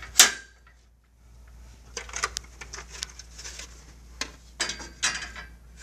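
Plastic anti-condensation caps being handled and snapped into an infrared beam tower's side rails. A sharp click comes right at the start, then a short lull, then a run of light clicks and taps from about two seconds in.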